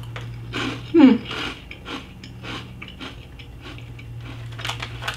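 Crisp corn chips being crunched and chewed in the mouth, a run of small sharp crackles, with a short vocal sound about a second in.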